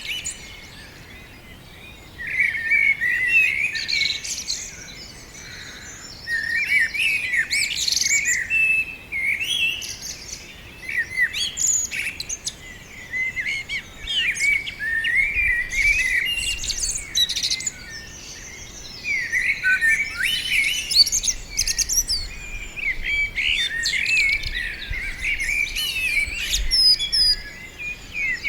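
Several songbirds singing and chirping together in repeated bursts of warbling and twittering notes, with short lulls between.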